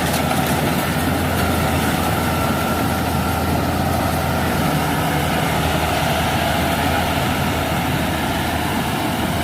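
Kubota DC70 combine harvester's diesel engine running steadily, an even low drone with no change in pace.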